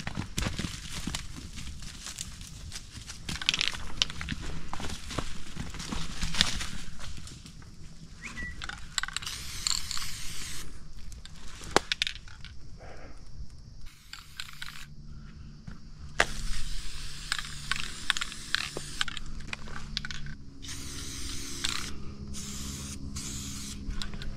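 Footsteps crunching and crackling through dry leaves, twigs and brush on the forest floor, irregular and uneven.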